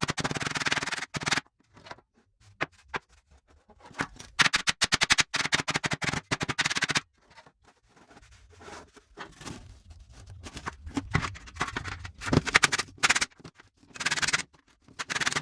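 Rubbing and scraping on the rusty steel tool box as rust is worked off by hand, in spells of quick strokes that stop and start with short pauses between.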